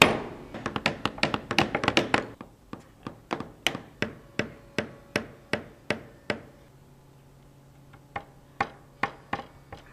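Hammers driving nails into wooden boards: a quick flurry of overlapping blows for the first two seconds or so, then steady strikes about two a second until about six seconds in. After a pause, four more blows come near the end.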